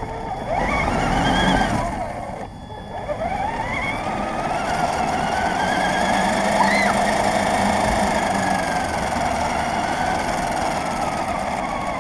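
Radio-controlled car's motor whining as it drives on asphalt, its pitch climbing as it speeds up, dropping briefly about two and a half seconds in when the throttle eases, then rising again and sinking slowly toward the end, over steady tyre noise on the pavement.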